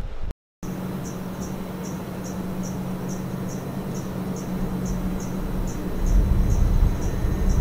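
A cricket chirping at an even pace, about two and a half chirps a second, over a steady low hum. A stronger low rumble comes in about six seconds in.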